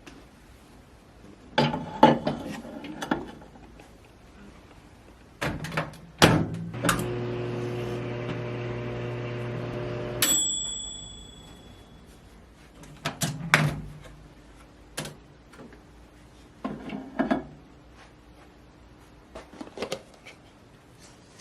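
Microwave oven in use: clacks of the door and handling, then the oven runs with a steady hum for about three and a half seconds and stops with a single beep. More clicks and knocks follow as the door is opened and the dish handled.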